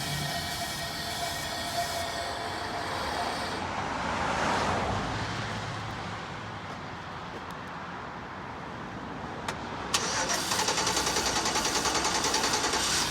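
Chevrolet Express van's engine being cranked by the starter, a rapid, even churning that starts suddenly near the end. The engine is fed only brake cleaner because its fuel pump has failed.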